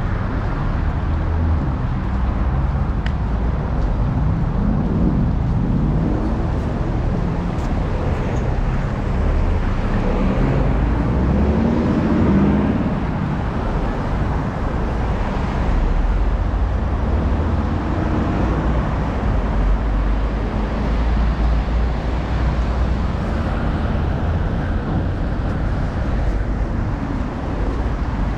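Steady dense city road traffic: a continuous rumble of car and bus engines and tyres, with passing vehicles swelling louder about five and twelve seconds in.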